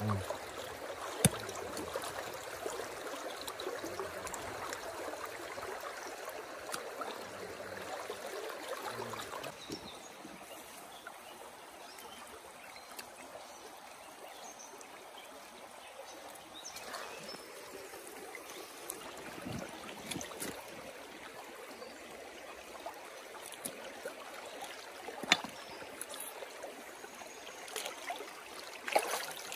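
Stream water running steadily, a continuous rushing trickle, with a few sharp clicks or knocks scattered through it.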